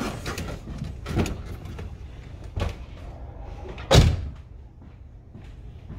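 Knocks and shuffling of a driver getting out of a car, then the driver's door shut with one loud slam about four seconds in, heard from inside the cabin.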